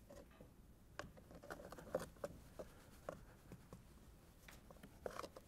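Faint soft pattering and scattered light ticks of baking soda poured from a plastic cup onto a sand layer.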